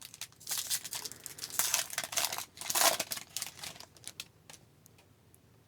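A trading-card pack's foil wrapper being torn open and crinkled for about three seconds, then a few light ticks as the cards are handled.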